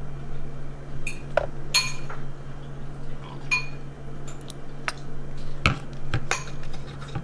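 Metal fork and bowl clinking: a scattered series of light clinks and knocks against a ceramic bowl on a tiled counter, a few of them ringing briefly. A steady low hum runs underneath.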